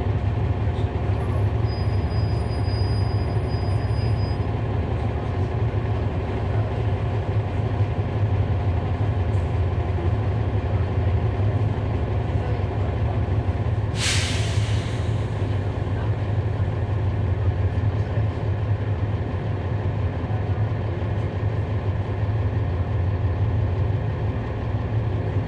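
Cummins ISL9 diesel engine of a 2011 NABI 40-SFW transit bus, heard from on board, running steadily with a low drone. About halfway through, a sudden hiss of released air from the bus's air brakes, fading over about a second.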